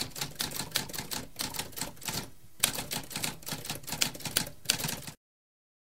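Typewriter keys clacking in quick, uneven strokes, with a brief pause about two and a half seconds in. The typing stops about five seconds in.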